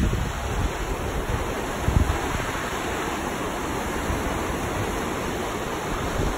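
River rapids rushing steadily over rocks, mixed with wind buffeting the microphone in low gusts, one stronger gust about two seconds in.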